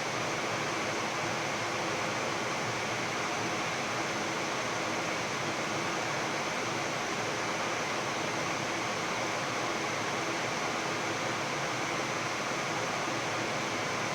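Steady rushing air noise inside a Boeing 787-10 flight deck on final approach, even and unchanging throughout.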